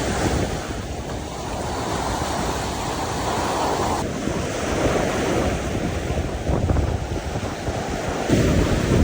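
Ocean surf washing onto a beach, with wind buffeting the microphone. The wash swells and falls, with a louder surge near the end.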